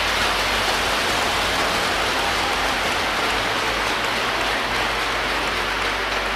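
Congregation applauding, a steady dense clapping that holds at an even level without a break.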